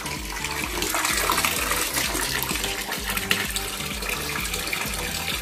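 Water pumped by a Rosston SP-2600 submersible aquarium pump jetting out of a hose and splashing steadily into a basin of water.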